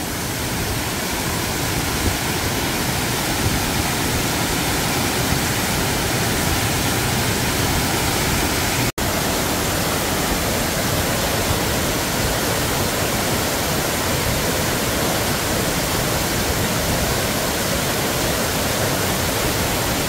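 Mountain waterfall cascading down a rocky chute between boulders, a steady, even rush of water close to the microphone, with a momentary break about nine seconds in.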